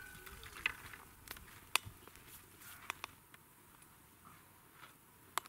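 Small wood fire crackling in a turbo camp stove: scattered sharp pops and ticks over a faint hiss, the loudest about two seconds in and again near the end.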